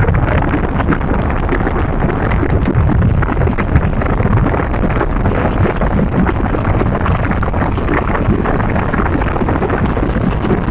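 Steady, loud wind rushing over the microphone of a vehicle moving at speed along a road, with the rumble of the moving vehicle underneath.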